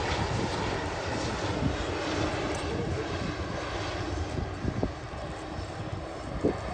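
Airliner engine noise, a steady hiss and low rumble, with gusts of wind buffeting the microphone.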